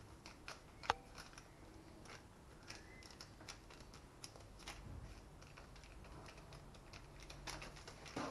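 Quiet, irregular small taps and clicks with light rustling of baking parchment as hands fold and press puff pastry scraps on the counter, one sharper click about a second in and a few more near the end.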